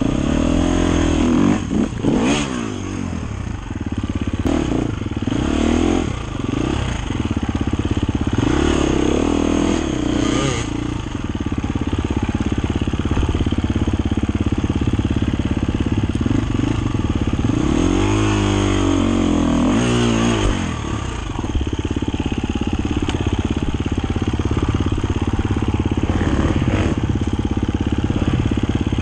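Dirt bike engine running, revved up and down in surges a second or two in, around nine seconds, and again around eighteen to twenty seconds, with steadier running in between.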